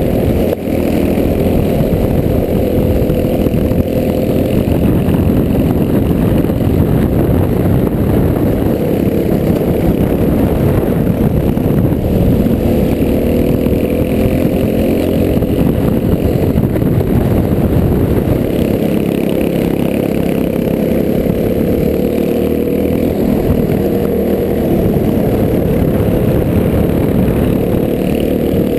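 Clone kart's single-cylinder four-stroke engine running hard at race speed, heard from the kart itself, its pitch climbing slowly along the straights and dropping back into the corners, several times over.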